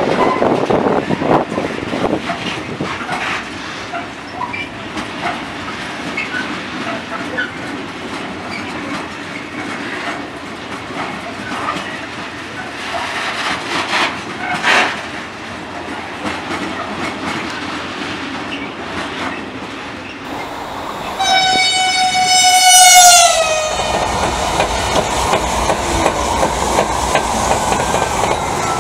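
Freight train of loaded log wagons rolling past, wheels clicking over the rail joints with short flange squeals. About 21 s in, a passing Renfe Talgo passenger train sounds one long horn blast whose pitch drops sharply as it goes by, followed by the steady rush of the train.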